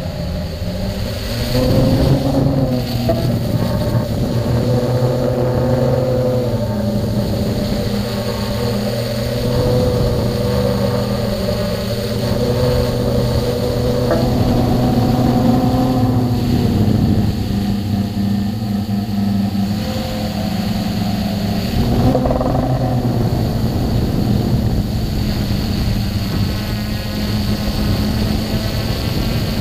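Multirotor drone's electric motors and propellers buzzing steadily, heard from its onboard camera, the pitch stepping up and down every few seconds as the throttle changes.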